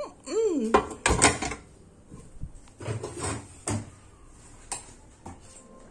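Plastic air-fryer basket drawer being handled, with a loud clack about a second in and several lighter knocks over the next few seconds. A brief rising-and-falling pitched sound comes just before the first clack.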